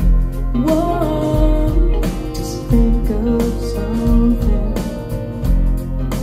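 A song with a woman singing over guitar and bass, played back through a pair of hi-fi speakers driven by an SMSL AL200 Class D integrated amplifier and picked up in the room by stationary microphones about ten feet away.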